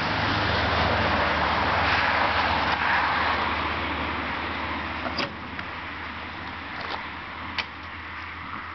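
Harley-Davidson Electra Glide V-twin idling through freshly fitted Screaming Eagle slip-on mufflers: a steady low exhaust rumble, a little louder for the first few seconds and then settling lower. A few short clicks sound in the second half.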